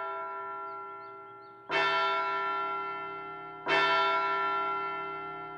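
A large bell tolling, struck about every two seconds, each stroke ringing out and slowly fading before the next.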